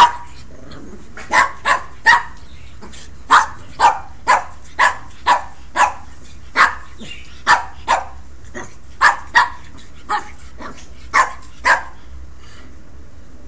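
Pekingese puppies giving play barks during rough play: a run of about eighteen short, high, sharp barks, roughly two a second, that stops near the end.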